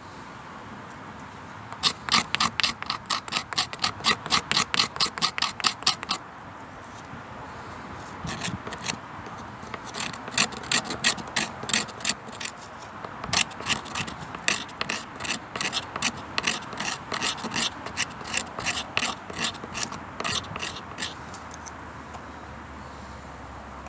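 Knife blade scraping a stick of resinous fatwood against a wooden board, raising fine shavings and dust as tinder for lighting a fire. A fast run of rasping strokes, about five a second, starts about two seconds in. After a short pause come more uneven runs of strokes, which stop a few seconds before the end.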